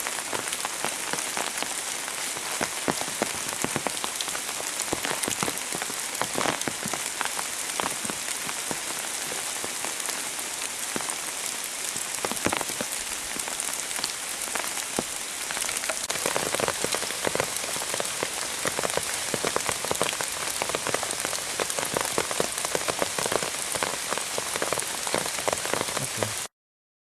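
Pouring rain, with many separate drops striking close by. The drops come denser and louder about sixteen seconds in.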